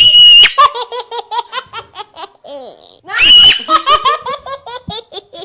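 Baby laughing hard while being tickled: two bouts, each opening with a high-pitched squeal and followed by a quick, even run of short 'ha' laughs.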